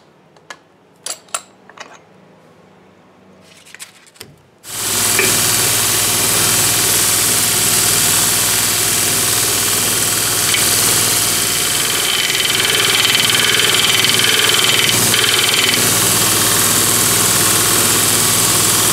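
A few light metal clicks of handling. Then, nearly five seconds in, a homemade belt grinder's electric motor is switched on and runs steadily, loud. A cutoff tool blade is sharpened on the belt in a sliding jig, with a thin higher tone for a few seconds in the middle.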